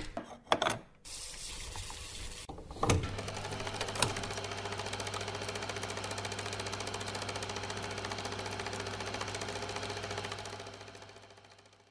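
Film projector: a few clicks as the reel is fitted, then a clunk about three seconds in as it starts, and a steady fast mechanical clatter over a constant low motor hum that fades away near the end.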